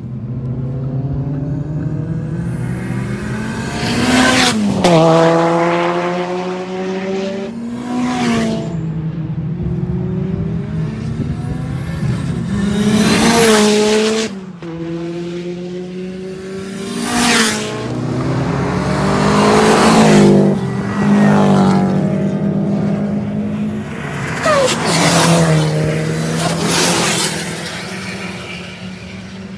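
Subaru and Mitsubishi performance cars passing at speed one after another, each engine note swelling and dropping in pitch as it goes by, about seven passes in all. A steady low engine tone runs underneath.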